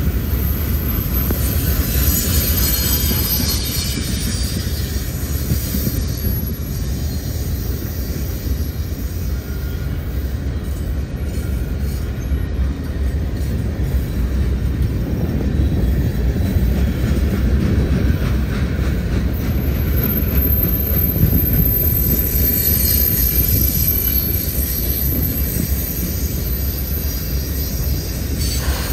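Freight train cars rolling past with a steady rumble of wheels on rail. A high squeal of wheels rises twice, briefly a couple of seconds in and for several seconds in the second half.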